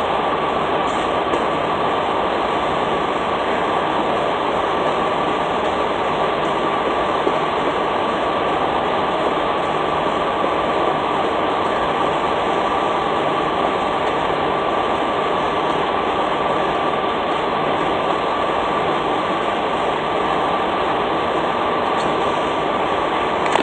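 Steady mechanical drone of idling truck engines and fuel-pump machinery, with a faint steady high whine over it.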